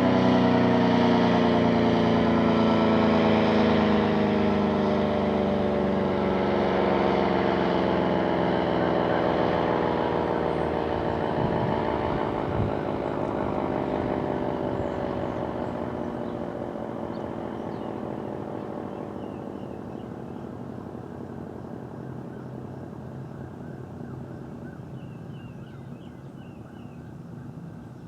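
ACA Allertor rotating mechanical warning siren winding down, its tone sliding slowly lower and fading as the rotor coasts to a stop after the test signal ends. A brief low knock is heard about halfway through, and faint bird chirps come in near the end.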